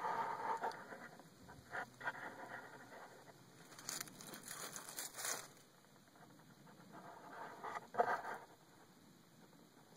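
Handling noise from a phone taped to a pole as it is pushed down into a sinkhole: irregular scraping and rustling against soil and roots, with a sharper knock about eight seconds in.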